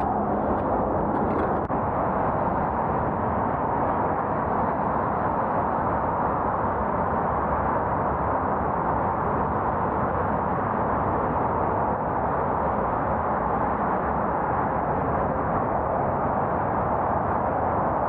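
Steady rushing noise of wind and road on the microphone of a camera riding along on a moving bicycle, even and unbroken throughout.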